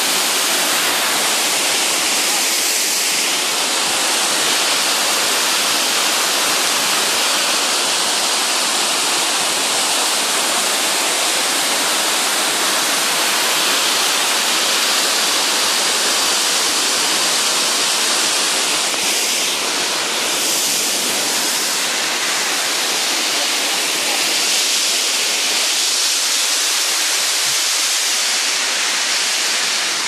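Bâlea Waterfall's water cascading down steep rock steps: a loud, steady rush of falling water.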